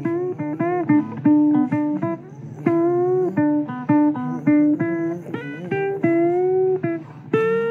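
Guitar played solo: a blues lead line of single plucked notes, many of them bent upward in pitch, in a steady run with a longer held note near the end.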